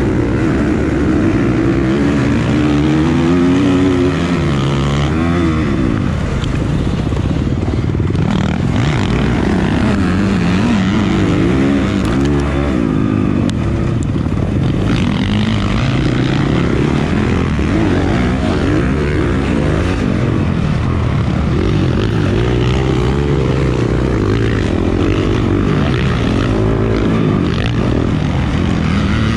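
Honda CRF450R single-cylinder four-stroke motocross engine at race revs, launching off the start gate and then rising and falling in pitch through the gears and over the jumps.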